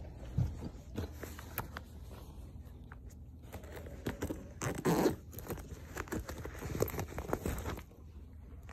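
Hands rummaging in a quilted bag: rustling and scattered clicks of handling, busiest and loudest about five seconds in.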